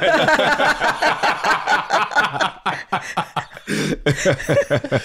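People laughing in quick rapid pulses, easing off after about three seconds.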